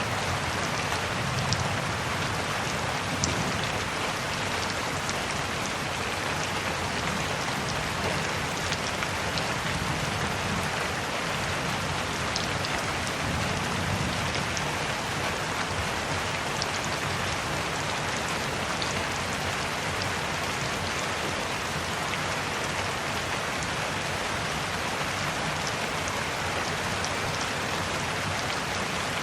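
Steady rain falling on a surface, an even wash with scattered individual drop ticks.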